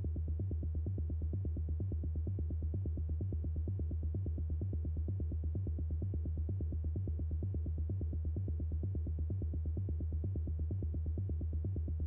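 Electronic dance music with the drums dropped out: a synthesizer bassline pulsing rapidly and repeating a short low pattern on its own.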